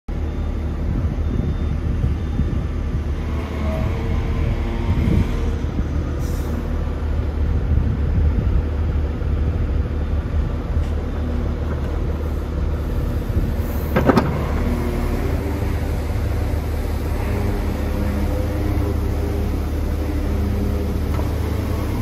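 Diesel engine of the excavator carrying the quick coupler idling steadily, with a single sharp knock about fourteen seconds in.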